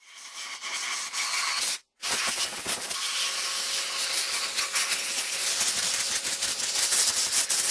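Pneumatic air hammer running, a dense hiss of exhaust air with a fast chatter of the piston striking. It stops for an instant about two seconds in, then runs on steadily.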